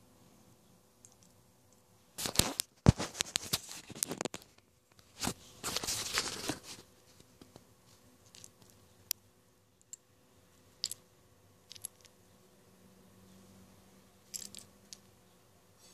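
Packaging crinkling and crunching in two bursts, the second starting about five seconds in. Then scattered small clicks of K'NEX plastic pieces handled in the hand.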